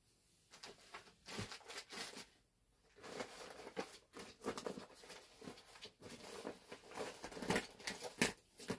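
Irregular light clicks and rustles of pocketknives being handled and picked through, sparse at first and busier from about three seconds in.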